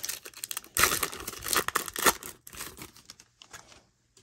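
A 1991 Score baseball card pack's wrapper being torn open by hand: a loud burst of tearing and crinkling about a second in, then smaller crinkles that die away.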